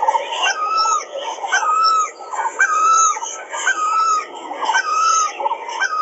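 Birds calling: the same short phrase, a quick rise into a held note, repeats very evenly about once a second.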